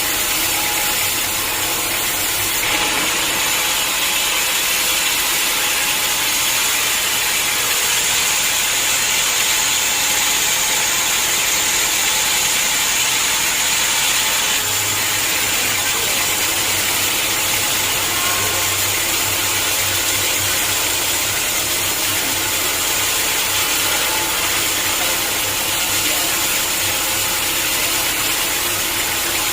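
Sawmill saw running steadily while cutting through a hard acacia log, a loud, continuous mechanical whir with a low hum underneath that fades and comes back about halfway through.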